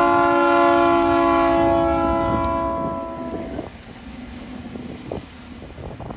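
Diesel locomotive 2054's multi-note air horn holds a steady chord for the road level crossing, then cuts off about three and a half seconds in. The train's rumble carries on under and after it as the locomotives and coal wagons roll past.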